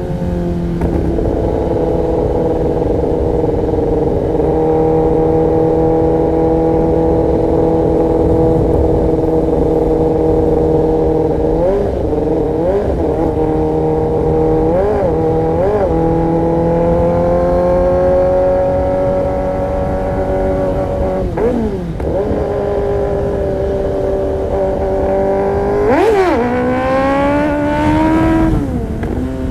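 Kawasaki ZX-10R's inline-four engine through an Arrow Pro-Race competition exhaust, running at a steady, slowly rising pitch, then revved in several quick throttle blips midway and sharper revs near the end.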